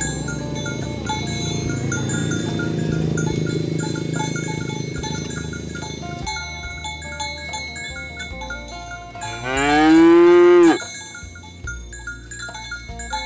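A cow mooing: one loud, long call about nine seconds in, rising in pitch and then dropping away over about a second and a half, after a lower, rougher sound in the first half.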